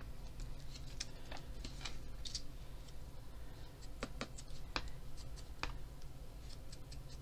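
Light, scattered taps and clicks from handling small paper cut-outs and a small ink tool on a desk, with a few sharper taps about halfway through.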